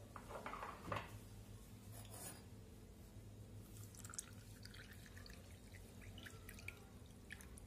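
Chilled water poured from a glass jug into a small glass mug of powdered sharbat premix: a faint trickle with light splashing and drips, after a light knock about a second in.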